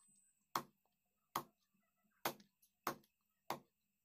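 Large knife chopping chicken on a wooden chopping block: five sharp strikes, about one a second at first, then quicker.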